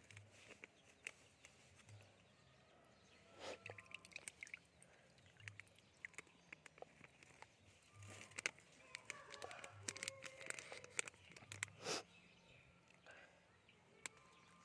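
Faint outdoor background with short bird calls and scattered small clicks and taps.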